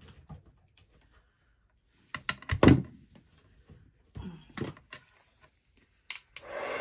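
A few knocks and clunks of things being handled on a table, loudest about two and a half seconds in; just before the end a craft heat tool switches on and blows with a steady hiss.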